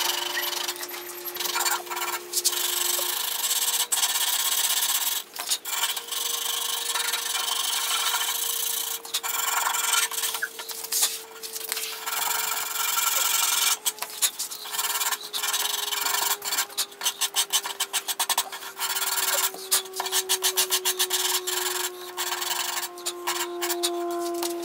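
Hand sanding of a wooden saw handle: sandpaper, partly on a shaped sanding pad, scratching over the wood in repeated back-and-forth strokes with brief pauses. The strokes get quicker and choppier in the second half. A faint steady tone drifts slowly lower in pitch underneath.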